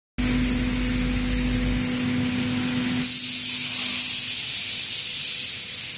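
Steady air hiss and machine hum from an automated laser-cutting cell with a robot sorting arm. About halfway through the low hum drops away and the hiss grows louder.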